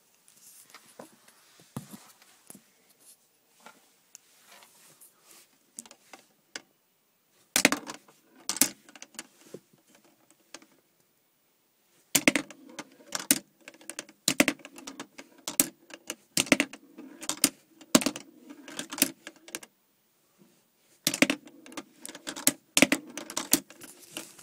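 Sharp clicks and clattering of hard plastic Lego pieces, in bursts: a short cluster about eight seconds in, then dense clicking for most of the second half with roughly one strong click a second.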